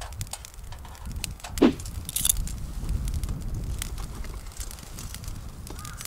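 Scattered crackles and light clicks from a Dutch oven cooking over a small charcoal grill while a utensil works in the pot, over a steady low rumble. About one and a half seconds in there is one louder, short sound that falls in pitch.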